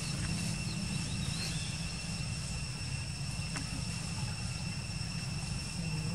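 Outdoor ambience: a steady low rumble with two thin, steady high insect tones above it, and a faint click about three and a half seconds in.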